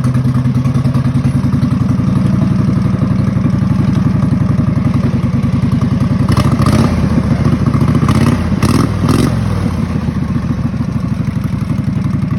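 Kohler Command V-twin engine of a race lawn mower running steadily under way. A few clattering knocks come a little past halfway and again shortly after.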